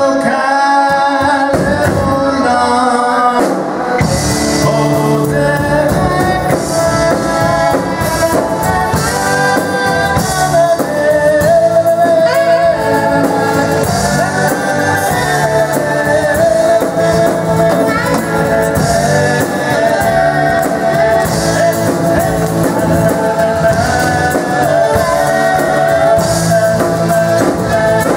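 Live Jewish folk-rock band playing: a male lead voice singing over strummed acoustic guitars, keyboard and drums. The low end fills out about four seconds in.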